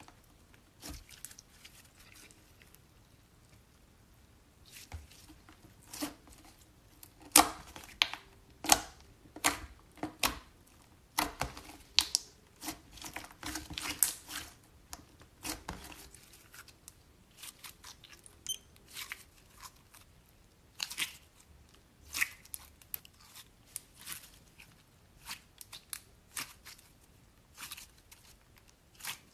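Hands pressing, folding and squeezing slime, with air pockets in it popping and crackling in irregular sharp snaps that are densest in the middle, with quiet stretches between.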